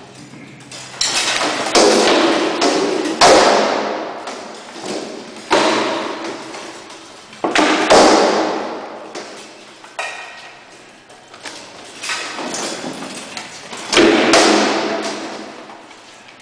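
Rattan swords striking shields and armour in a sparring bout: a string of sharp cracks and thumps at irregular intervals, some in quick pairs, each ringing on in a long echo off the bare concrete hall.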